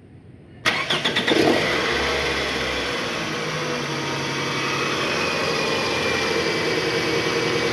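Toyota Harrier's four-cylinder engine being started: it cranks briefly about half a second in, catches, and settles into a steady idle.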